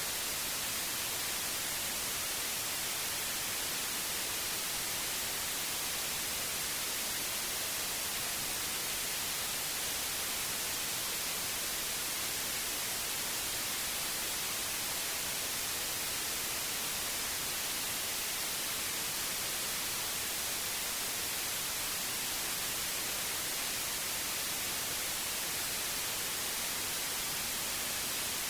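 Steady electronic white noise: an even, unchanging hiss with no other sound.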